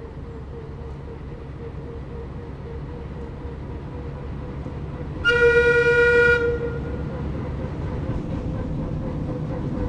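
Small narrow-gauge diesel locomotive running as it approaches, growing louder. About halfway through it gives one horn blast lasting about a second.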